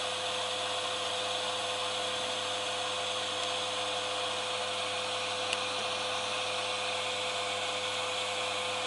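Steady whirring hiss of a fan-driven blower running, with a steady hum over it; one small click about five and a half seconds in.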